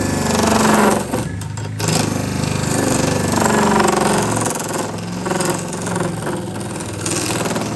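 A motor running loud, its pitch rising and falling as under changing load, with a brief dip about a second in.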